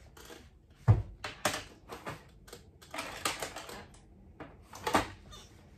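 Plastic clicks and rustling as eyeliner pens and their caps are handled, with a sharp click about a second in and another near the end.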